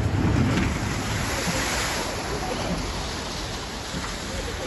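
Steady rushing of water on a log flume ride, with wind buffeting the microphone, heaviest about the first second.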